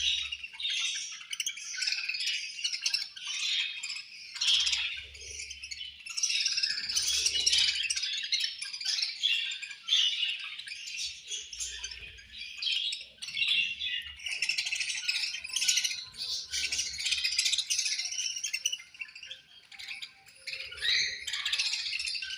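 A flock of budgerigars chirping and chattering, many birds at once in a dense, continuous twitter.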